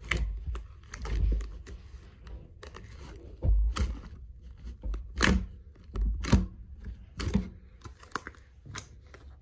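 Homemade slime squeezed and pressed by hand right up close: irregular sticky clicks and pops, with low handling thumps.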